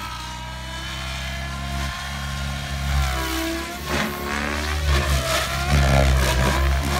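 Electric RC helicopter with a Scorpion 4530 540kV motor running on idle-up: a steady motor and rotor whine made of several tones. About three seconds in, the pitch dips and recovers as the rotor speed changes.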